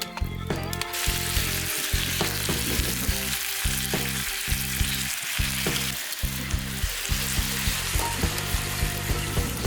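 Vegetables sizzling as they are stir-fried in a frying pan: a steady frying hiss.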